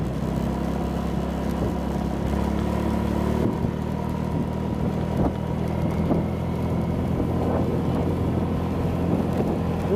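Motorcycle engine running steadily while riding along a road, with road and wind noise; the engine note shifts about three and a half seconds in.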